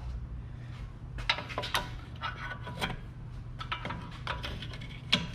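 Front brake caliper being worked off a car's brake: scattered sharp metal clinks and light scrapes, the loudest near the end.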